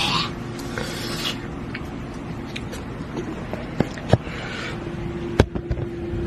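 Candy packaging handled and rubbed, with rustling scrapes and a few sharp clicks, over a faint steady hum.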